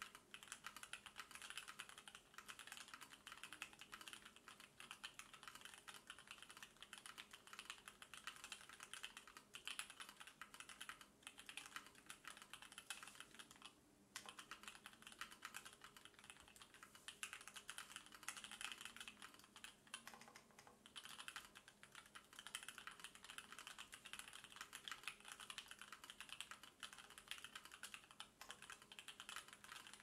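Continuous fast typing on a mechanical keyboard with linear switches: Invyr UHMWPE stems in Durock linear housings with Cherry top housings and 67 g springs, all stock and unlubed. Dense, irregular key clacks, with a brief pause about 14 seconds in.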